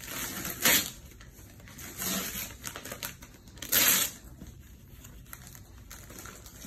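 Gift wrapping paper being torn open by hand in several short rips with crinkling between, the loudest and longest rip about four seconds in; only quieter rustling follows.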